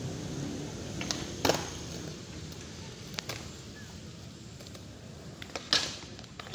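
Skateboards clacking on concrete: a few sharp clacks of boards striking the ground, the loudest about a second and a half in and near the end.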